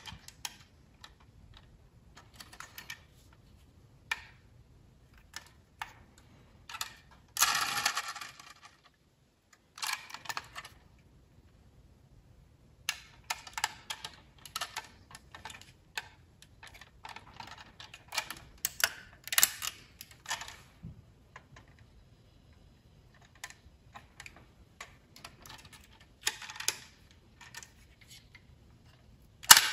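Die-cast metal model cars handled by hand: scattered clicks and clatter of small metal and plastic parts, coming in irregular clusters, with a longer rattle about seven seconds in.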